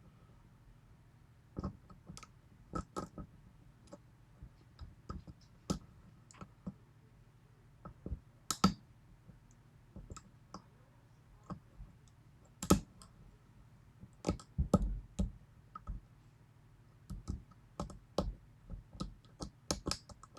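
Irregular, sparse metallic clicks and taps of a lock pick working the pins of a 6-pin Yale pin-tumbler lock under tension, some in quick pairs.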